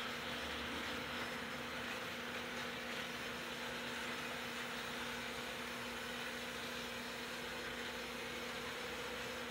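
Two small electric model trains running continuously around their track loops: a steady whirr of the locomotives' motors and wheels on the rails, with a constant low hum underneath.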